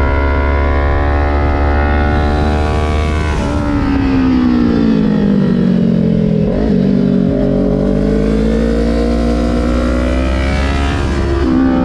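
Kawasaki Ninja 400's 399 cc parallel-twin engine heard from on board the bike. The note holds steady, then drops in pitch as the revs fall under engine braking into a bend, and climbs again as the throttle opens. It jumps abruptly twice where the footage is cut.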